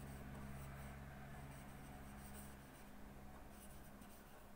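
A pen scratching faintly on chart paper as a word is written by hand, over a steady low electrical hum.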